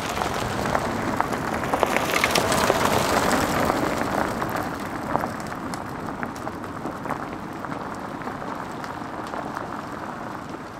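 Tyres of an electric Tesla Model Y crunching and crackling over a snow-dusted gravel road as the car pulls past and drives away. The sound is loudest two or three seconds in, then fades slowly.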